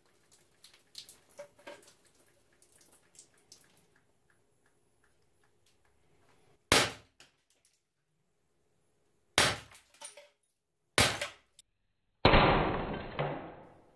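Umarex Beretta 84 FS CO2 BB pistol firing three shots at a can target, each a sharp crack, the first about seven seconds in and the next two a couple of seconds apart, after light handling clicks. About twelve seconds in, a rushing, hissing noise lasts about a second and a half.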